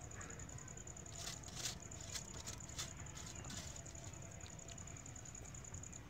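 Faint scattered soft pops and ticks from a clay pot of kadhi cooking over a fire, over a low steady hum and a thin steady high tone.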